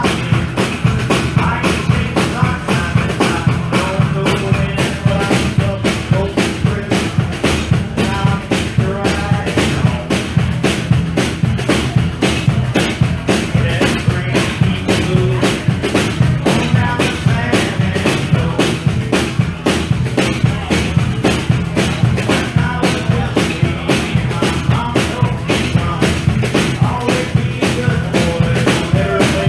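Small live band playing a country song: acoustic guitar over a drum kit keeping a steady, driving beat of evenly spaced hits.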